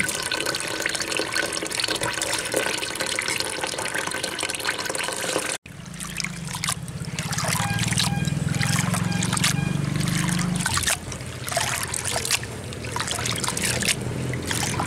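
Soaked urad dal being washed by hand in a steel bowl. Tap water first runs steadily into the bowl; then hands rub and stir the lentils in the water, with repeated short splashes. A low hum sits under the splashing for several seconds in the middle.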